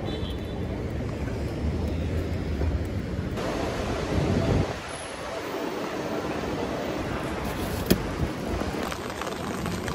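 Street ambience: a steady low rumble of traffic with wind on the microphone. About five seconds in it gives way to an even hiss of heavy rain, with a single sharp tap near the end.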